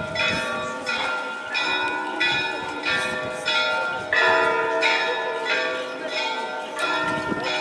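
Orthodox church bells pealing, several bells of different pitch struck in a quick repeating pattern about every half second, their tones ringing on between strikes.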